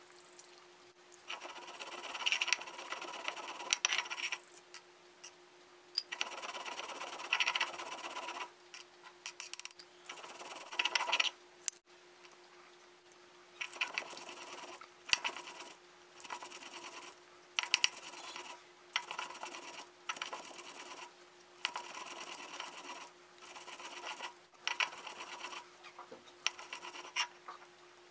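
Stone roller of a sil-nora grinding stone grinding mustard seeds, spices and onion into a paste on the flat stone slab: a gritty rasping scrape in repeated strokes a second or two long, with short pauses between.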